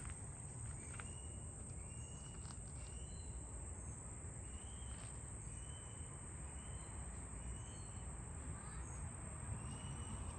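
Park ambience: many short bird chirps scattered throughout, over a steady high-pitched insect drone, with a low rumble underneath.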